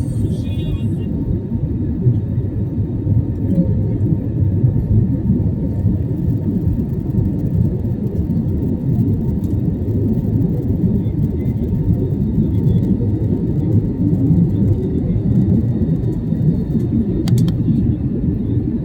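Airliner cabin noise: a steady, even low rumble of jet engines and airflow during the takeoff climb, with a short click near the end.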